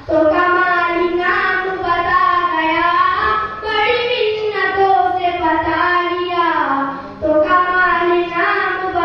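A young boy singing a naat, an Urdu devotional poem in praise of the Prophet, solo into a microphone in long, ornamented held lines, with a brief pause for breath about seven seconds in.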